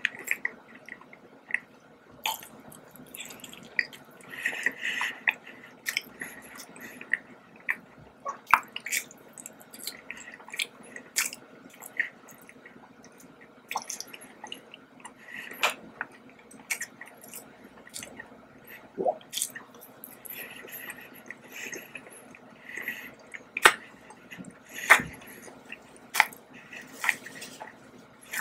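Close-miked chewing of a soft donut: irregular wet mouth smacks and clicks, with a faint steady hum behind.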